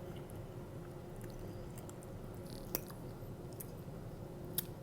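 Quiet chewing of a mouthful of cheesy pizza fries, close to the microphone, with a few short sharp clicks from the mouth, one each near the middle and near the end.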